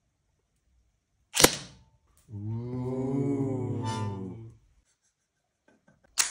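A single sharp crack of an airsoft shot, then about a second later a low, drawn-out groan voiced into the harmonica clamped between his lips, lasting about two seconds and rising then falling in pitch. Another sharp crack comes near the end.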